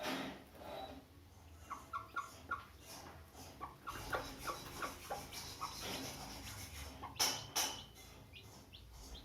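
Chickens, a hen with chicks, making a run of short repeated peeps and clucks. A few sharp knocks come near the end.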